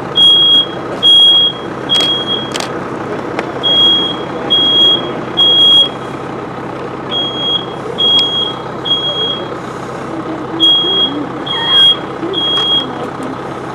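Smoke alarm sounding in the temporal-three evacuation pattern: a high beep repeated three times, then a pause, four rounds over, set off by smoke from a trash-can fire. Underneath runs the steady drone of a running fire truck.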